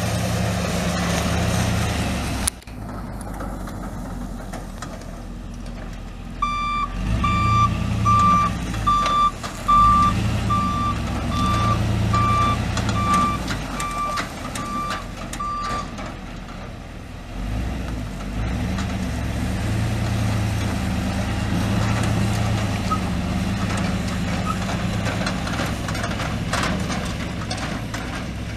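Pickup truck's 6.0-litre gas V8 running as the truck is driven. A reversing alarm beeps steadily at one pitch, about one and a half beeps a second, for about nine seconds.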